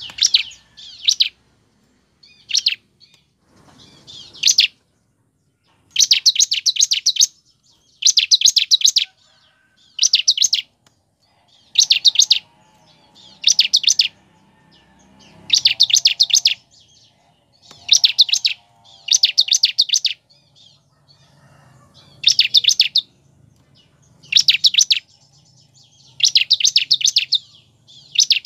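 Bar-winged prinia (ciblek) calling: repeated bursts of rapid, sharp, high-pitched notes, each burst about a second long and coming about every two seconds.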